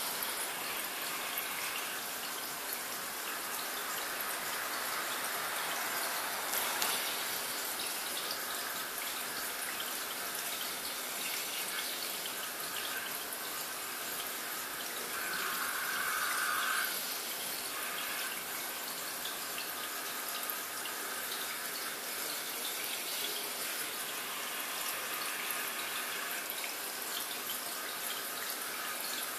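Steady trickling and splashing of water in a planted home aquarium, growing briefly louder about halfway through.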